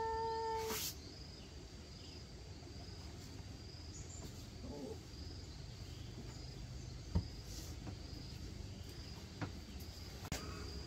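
Insects chirring steadily in one high, even tone over a low background hum. A brief pitched note is held in the first second, and a few faint knocks come later.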